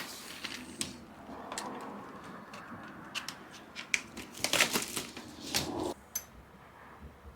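Packaging being handled while a bike is unboxed: irregular rustling with small clicks and taps, busiest around the middle and quieter near the end.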